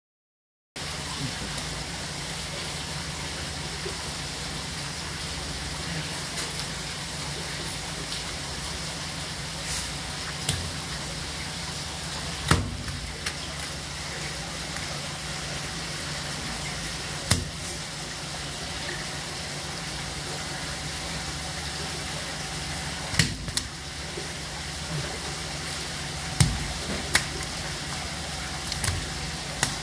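A steady low hum, like running machinery, with a handful of sharp knocks scattered through, the strongest about halfway and near the end.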